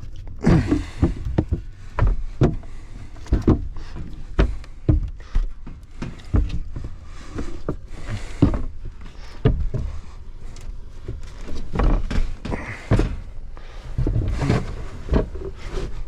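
Irregular knocks, clunks and rustling handling noises, several a second, as of someone working with tools and moving around the equipment.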